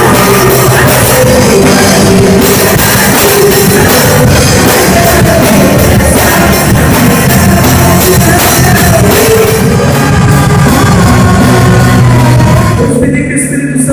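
Worship band playing a rock-style praise song with singing and drums. Near the end the drums and cymbals drop out, leaving softer sustained chords.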